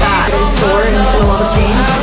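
Pop music with a singing voice over a steady bass line.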